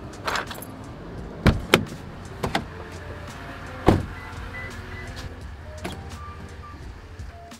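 Handling sounds from a pickup truck: a handful of sharp clicks and knocks as the gear selector is moved and a door is worked, over a low steady rumble. The loudest knock comes about four seconds in.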